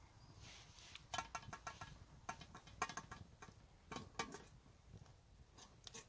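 Small twig campfire crackling: irregular sharp pops and clicks, with a quick run of them about a second in.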